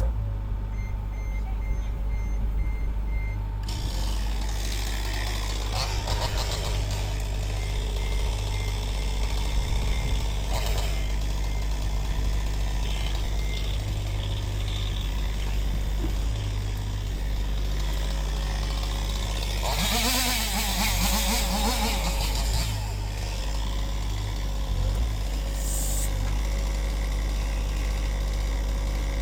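Compact excavator's Yanmar diesel engine running steadily, with a reversing alarm beeping in short even pulses at times. About twenty seconds in, a louder rushing, crackling noise lasts a couple of seconds.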